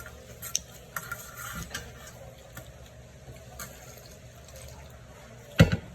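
Eating sounds from a bowl of cold noodle soup: scattered light clicks with soft liquid sounds, then one loud thump near the end.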